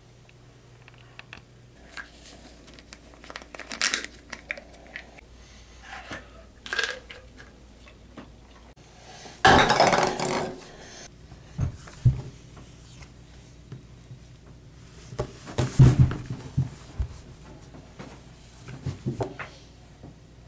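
Hard small objects knocked about on a bathroom counter and sink, among them a plastic pill bottle: a series of separate knocks and rattles. The loudest is a clatter of about a second and a half, some nine and a half seconds in.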